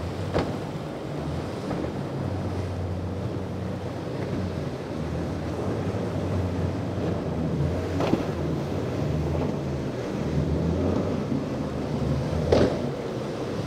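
Wind buffeting the microphone over surf, with boat engines running low and steady underneath. Three sharp slaps cut through, the loudest near the end.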